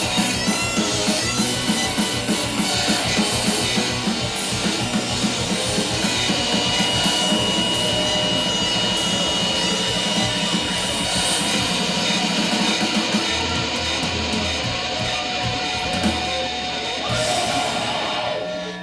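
Rock music on drum kit and guitar, with fast, regular drum hits over the first few seconds and more sustained playing after that.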